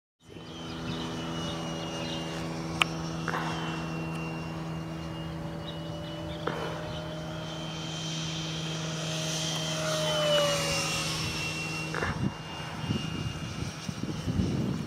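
Freewing 64mm MiG-15 model jet's electric ducted fan whining as it flies, the whine swelling and dropping in pitch as the jet passes about ten seconds in. Under it a steady low hum runs until about twelve seconds in, with a few sharp clicks, and low rumbling noise near the end.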